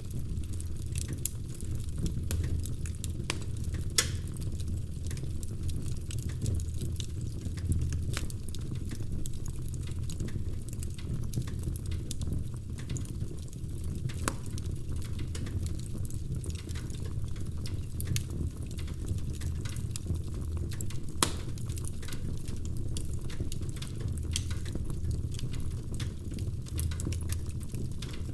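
Wood fire crackling in a fireplace: a steady low rumble of the flames with scattered sharp pops and snaps, two louder pops about four seconds in and again past the twenty-second mark.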